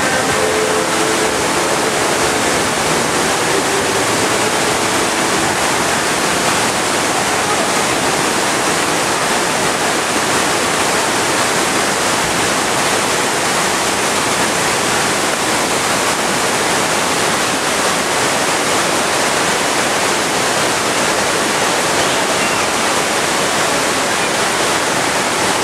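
Steady rush of pouring and splashing water from a water-park play structure and slide, with no pause.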